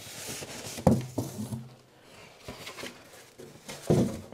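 Polystyrene foam packing insert being pulled up and out of a cardboard box, scraping against the box sides, with a knock about a second in and another louder knock near the end as it is set down.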